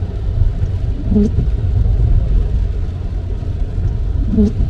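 Steady low road and tyre rumble inside a car on a wet highway. Twice, about a second in and again near the end, the windscreen wipers give a short squeak as the blades drag stiffly across the glass.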